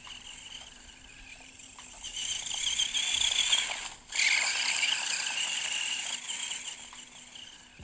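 Haiboxing Ratchet 1/18-scale electric RC buggy driving, its motor and gears giving a high, wavering whine over a rattling drivetrain. It grows louder in the middle and cuts out for a moment about four seconds in.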